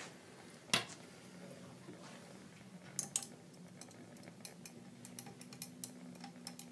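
Glass stirring rod clinking against the inside of a glass boiling tube as it stirs benzoic acid crystals into hot water to dissolve them: one clink about a second in, then quick, irregular clinks from about three seconds on.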